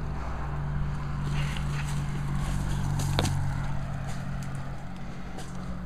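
Footsteps and rustling through dry brush and undergrowth, with a sharp snap or click about three seconds in, over a steady low drone.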